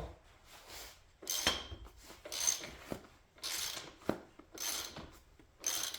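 Hand socket ratchet worked in short strokes on a motorbike's rear axle nut, the pawl clicking in a quick burst about once a second.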